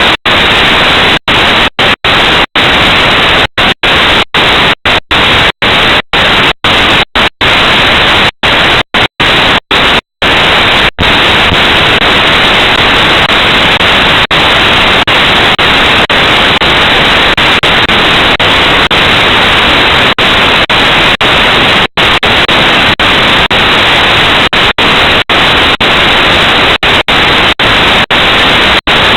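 Loud, steady static hiss, broken by many brief dropouts to silence, most frequent in the first ten seconds or so.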